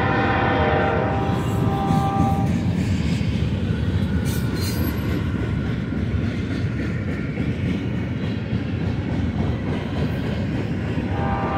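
A freight train's cars roll past close by: steady rumble and clatter of steel wheels on rail. A locomotive horn sounds over it, fading out about two seconds in and starting up again near the end.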